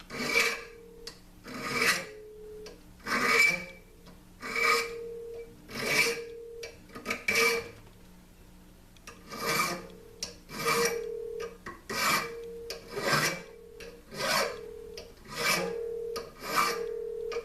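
Single-cut hand file drawn across a cast brass trigger guard held in a vise, taking down casting marks: steady rasping strokes about one every second and a bit, with a brief pause partway through.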